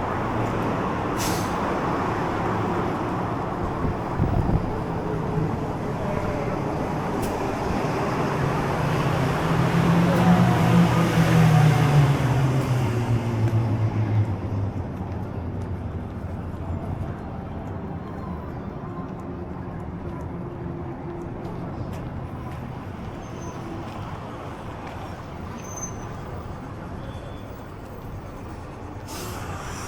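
Road traffic: a motor vehicle passes close by, its engine hum and tyre noise building to a peak about ten to thirteen seconds in and then fading into steady background traffic.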